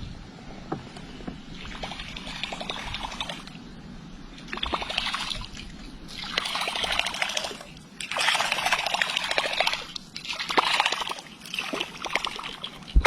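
Water splashing and sloshing in several separate spells a second or two long, strongest in the second half.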